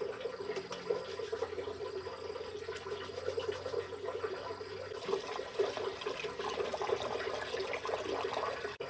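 Dishes being washed by hand in a metal basin of water: water sloshing and splashing, with many small clinks and knocks of the dishware.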